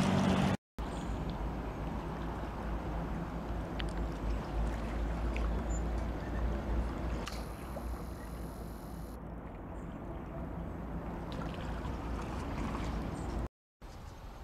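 Steady outdoor ambience: a low wind rumble with a wash of water noise. It cuts out briefly just after the start and again near the end.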